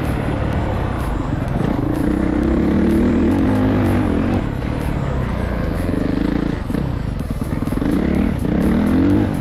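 Motocross bike engine running hard on a dirt track, heard from on the bike, its revs climbing and falling: rising from about two seconds in, dropping sharply a little past the middle, then climbing again near the end.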